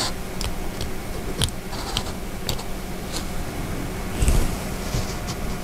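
Small clicks, taps and scraping of metal and plastic parts as a 24BYJ48 stepper motor is pulled apart by hand, its steel can housing coming off the copper-wound stator coils. A slightly louder rustle about four seconds in.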